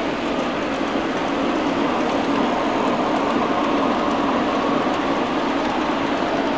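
Large-scale model train rolling past on its track: a steady rumble of wheels on rails and running gear, holding an even level throughout.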